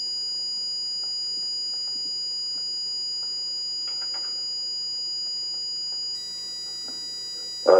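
Buzzer driven by an Arduino Uno's PWM output on pin 5, sounding a steady high-pitched tone. A little after six seconds in its tone turns buzzier and drops slightly in level as the PWM value is turned down from 128 (half power) to 10.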